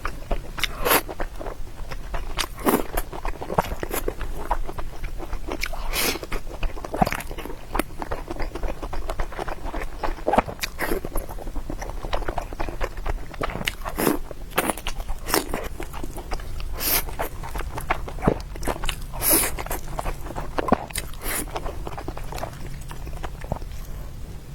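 Close-miked eating: crunchy bites and chewing, with irregular sharp crunches and clicks from the mouth.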